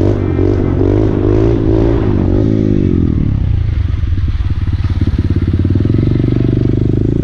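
Motorcycle engine running under a rider: for about the first three seconds its pitch rises and falls with the throttle, then it settles to a steady, lower pitch with plainly spaced firing pulses.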